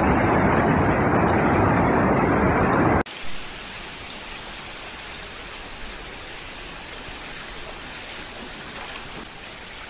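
Muddy floodwater rushing through a crop field, a loud steady rushing noise that cuts off abruptly about three seconds in, leaving a quieter, even hiss.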